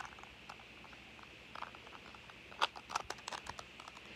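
Light plastic clicks and rattles of a 3x3 Rubik's cube being turned and handled, scattered through and bunched into a quick run of sharper clicks a little past halfway.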